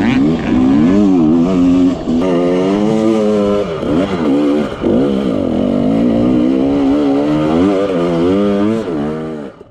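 Dirt bike engine revving hard, its pitch rising and falling again and again as the rider works the throttle up a steep, rutted climb. The sound fades out near the end.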